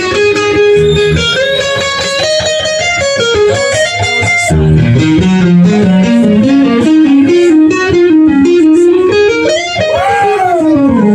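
Live blues-rock electric guitar lead: held notes and quick runs, with a wide string bend up and back down near the end, over the band's accompaniment.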